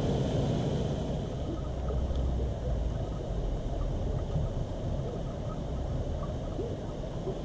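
Steady hiss of water pouring over a small weir, fading about a second in, under a constant low, uneven rumble of wind on the microphone.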